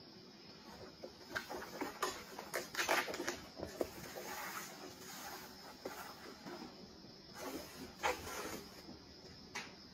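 Kittens' paws scuffling and scrabbling on a corrugated cardboard scratcher ramp and carpet as they chase and pounce. Irregular scrapes and soft knocks, busiest around three seconds in and again around eight seconds.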